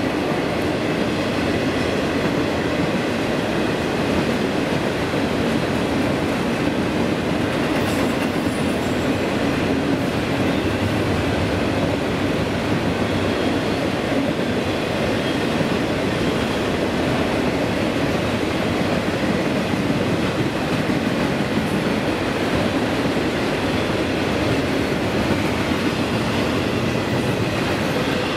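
Freight train rolling past on the rails: a steady, unbroken sound of wheels on track.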